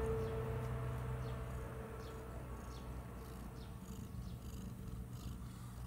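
Domestic cat purring close up, a low rumble that slowly fades.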